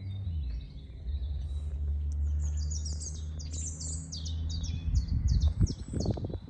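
A small bird singing a quick run of about a dozen repeated high, falling chirps, starting about two seconds in, over a steady low hum. Louder low rumbling comes in near the end.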